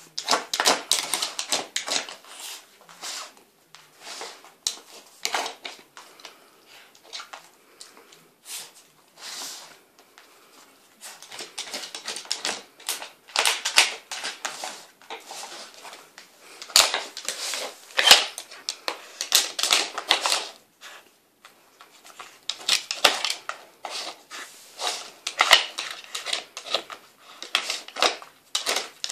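Plastic bricks of a Nina Ottosson wooden dog puzzle board clattering and sliding in their slots as a dog noses and paws at them: irregular runs of quick clicks and knocks with short pauses.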